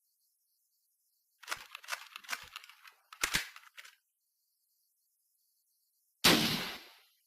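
M40 bolt-action sniper rifle sound effect: a run of sharp metallic clicks and clacks, the bolt being worked, then a single loud shot about six seconds in that fades out over about a second.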